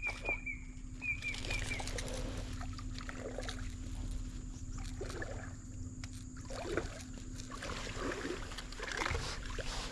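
Irregular water sloshing and small splashes in a shallow stream. A bird calls a quick run of about five short, high notes at the start.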